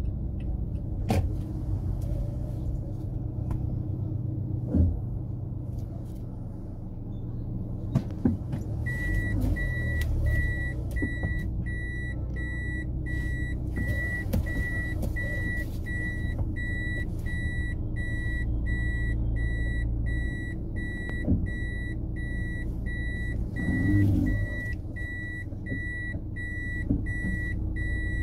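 A motor vehicle's low engine rumble throughout, with a few sharp knocks in the first eight seconds. From about nine seconds in, a high electronic beep starts repeating in a steady, even run, like a vehicle warning beeper.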